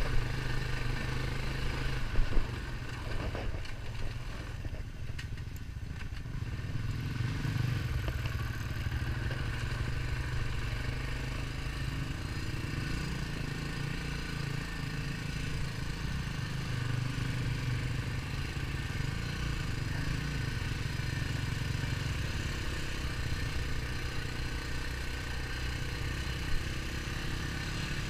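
ATV engine running steadily while riding along a dirt trail, with a few sharp knocks about two seconds in and near the end.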